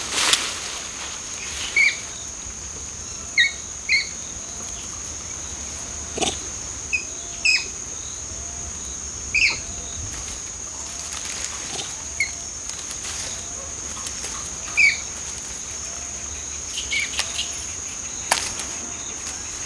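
Tropical forest ambience: a steady high insect drone, short bird chirps scattered throughout, and a soft low call repeated a little faster than once a second through the middle. A few sharp rustles of leaves and branches cut through, one right at the start.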